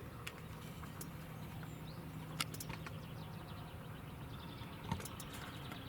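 Quiet outdoor ambience with a faint steady hum and three sharp clicks, the loudest about two and a half seconds in.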